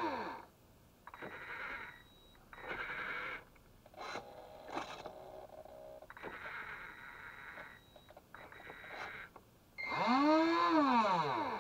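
Electronic toy cat calling through its small speaker: a series of short rasping, hissing noises, then one long meow that rises and falls in pitch about ten seconds in.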